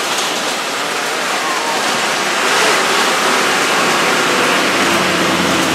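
Inside an old bus with its windows open, driving fast up a winding hill road: a steady rush of wind and road noise over the running engine. Near the end the engine's low drone comes up as it labours on the climb, not pulling well.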